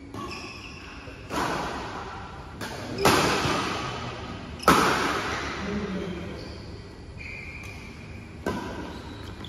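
Badminton rackets hitting a shuttlecock during a doubles rally: a handful of sharp cracks at uneven intervals, echoing in a large metal-walled hall. The loudest hits come about three and four and a half seconds in.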